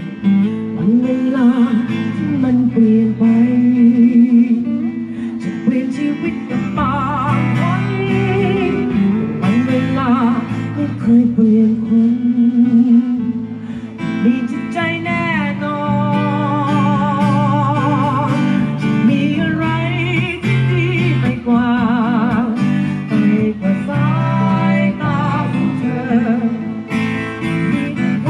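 Live acoustic performance of a slow song: acoustic guitar accompanying a singer who holds notes with vibrato.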